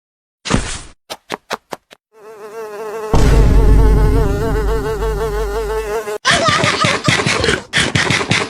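Loud insect buzzing, a wavering hum that swells in about two seconds in, after a short whoosh and a few quick clicks.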